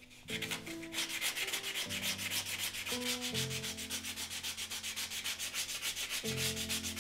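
Hand sanding: sandpaper rubbed quickly back and forth over a thin piece of wood in rapid, even strokes, starting about a quarter of a second in.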